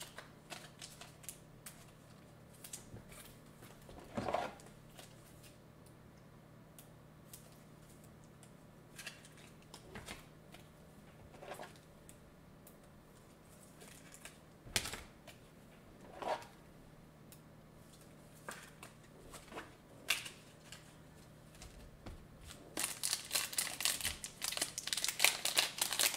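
Scattered light clicks and taps over a faint steady hum, then near the end the loud crinkling of a foil trading-card pack wrapper being handled and opened.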